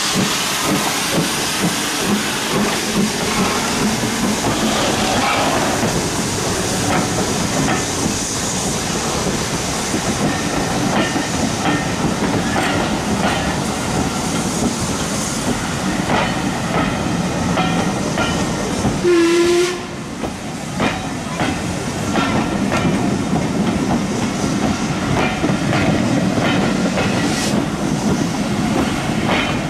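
BR 9F 2-10-0 steam locomotive No.92214 pulling its train slowly away, with steam hissing, then its coaches rolling past with wheels clicking regularly over the rail joints. A brief low tone sounds about two-thirds of the way through.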